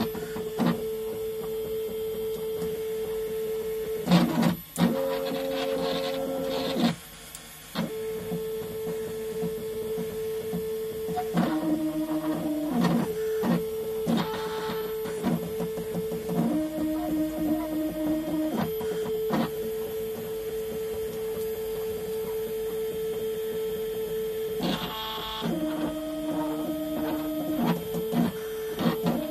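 Stepper motors of a DIY CNC gantry whining in steady tones while the laser head traces letter outlines. The pitch jumps every second or two as the head changes direction and speed, with two tones at once when both axes move together. The whine cuts out briefly about seven seconds in.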